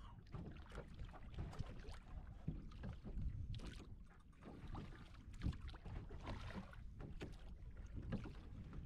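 Small river water lapping and slapping irregularly against a wooden boat's hull, over a low rumble of wind on the microphone.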